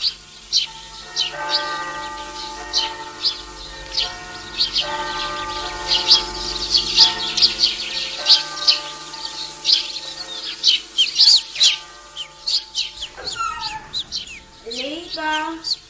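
Birds chirping and singing throughout over soft held music chords that fade out about three quarters of the way in; near the end a rooster crows.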